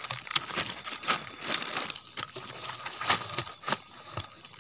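A twig scraping and poking through dry, crumbly soil and leaf litter: irregular scratchy crackles and small clicks.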